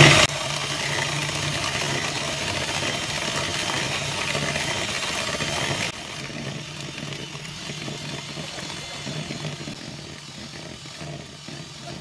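Electric hand mixer running steadily, its twin wire beaters whipping eggs and sugar in a plastic bowl into a light, fluffy batter. It gets quieter about six seconds in.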